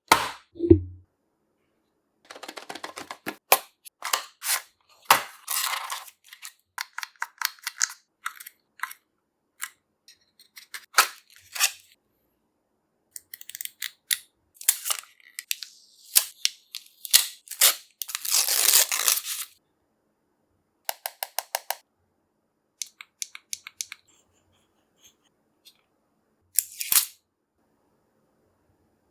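Earbud packaging being handled and opened: short scrapes and rustles of cardboard and plastic, a longer sliding or tearing noise about two-thirds through, then runs of quick sharp clicks and a thump near the end.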